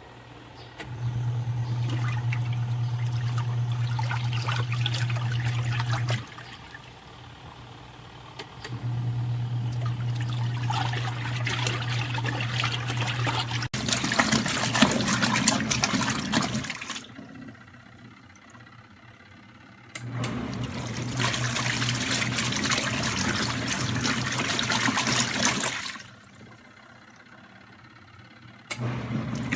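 ROVSUN twin-tub washer's wash motor running in runs of about five seconds, each followed by a pause of about three seconds, with water sloshing in the tub while it runs. The start-stop pattern is the impeller churning the wash load and reversing direction between runs.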